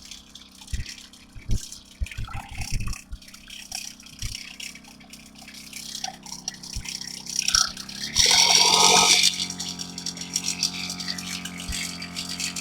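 Motorized knapsack sprayer pumping herbicide: a few scattered knocks, then about eight seconds in its pump starts with a loud hiss of spray lasting about a second, and settles into a steady hum.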